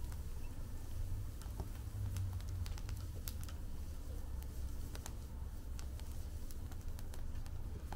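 Fire crackling in a fire pit: irregular sharp pops and snaps over a steady low rumble.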